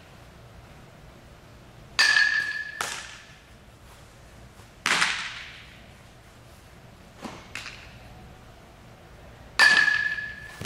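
Ball struck twice by a metal softball bat, each a sharp ping with a brief ringing tone, about seven and a half seconds apart. Between and after them come sharp pops and softer thuds of balls being caught and fielded, each echoing in the large indoor hall.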